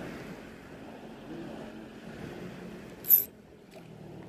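Steady wind and water noise at sea, with one short, loud, high-pitched hiss about three seconds in.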